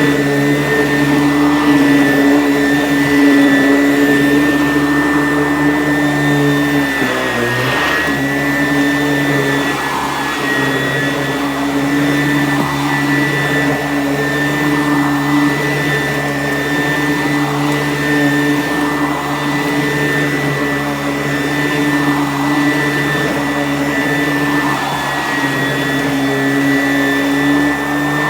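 Sanitaire S663 vacuum cleaner running steadily with a high motor whine, its pitch dipping briefly about seven seconds in, and a gentle rise and fall in its noise every couple of seconds.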